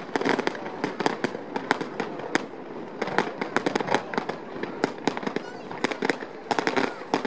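Fireworks display: aerial shells bursting in rapid, irregular bangs, several a second.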